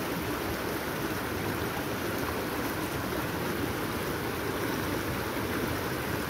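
Steady rush of flowing water, an even noise that holds at one level without breaks.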